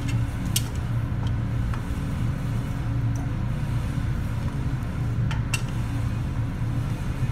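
Steady low hum of lab room machinery. A few light, sharp clicks sound over it, two or three in the first second and a half and two more about five seconds in, as tongue-and-groove pliers and a pipe wrench grip and turn the plastic cap on a polypropylene column.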